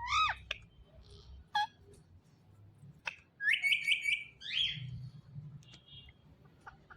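Indian ringneck parakeet calling and chirping: a couple of short bending calls near the start, then a quick run of chirps about three and a half seconds in, followed by a falling call.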